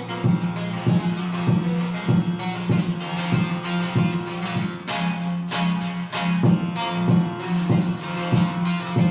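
Divan bağlama, a large long-necked Turkish lute with a carved bowl body, played with a plectrum: repeated plucked and strummed strokes, about two or three a second, over a steady low ringing note.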